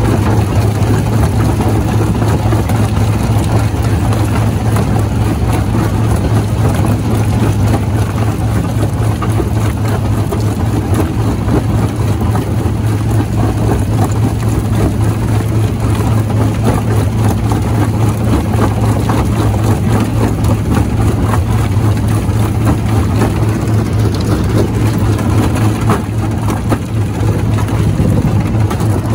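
Jaw rock crusher running: a steady heavy low hum from the machine, with continual cracking, knocking and grinding as stone is broken between the jaws.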